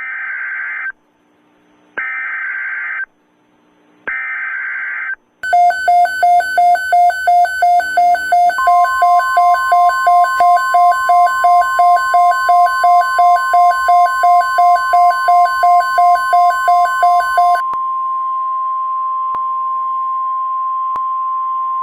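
Emergency Alert System interruption: three roughly one-second bursts of screeching digital header data, a second apart, then a harsh alert tone pulsing about three times a second. A few seconds in, a steady single-pitched NOAA Weather Radio-style warning tone joins it and carries on alone after the pulsing stops.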